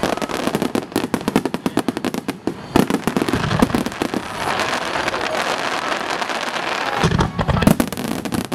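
Fireworks finale: a rapid barrage of shells bursting with many sharp bangs, giving way about four seconds in to a continuous dense crackling, with heavier low booms near the end.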